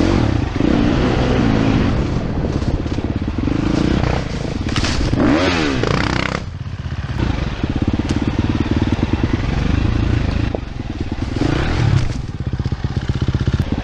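Dirt bike engine heard from the rider's helmet, with the throttle rising and falling as it works along a rough trail. There is a quick run of revs up and down about five seconds in, and a short drop in level just after six seconds.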